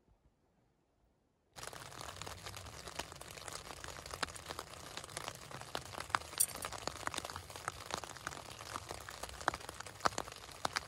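Near silence, then from about a second and a half in, steady crinkling and rustling with many scattered sharp ticks, heard inside a tent.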